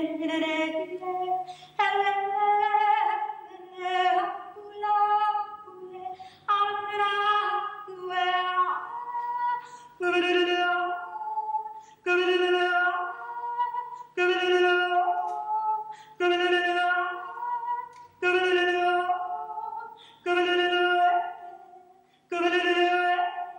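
A woman singing unaccompanied in short, repeated phrases with brief breaths between them. From about halfway on, the phrases come evenly, roughly one every two seconds, each held on a steady note with a small step in pitch.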